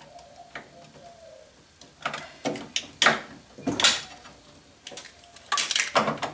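Metal hardware handling: a washer and nut being fitted onto a bolt through a steel electrical box, heard as a run of scrapes and clicks, the loudest group near the end. A faint wavering squeak sounds in the first second or so.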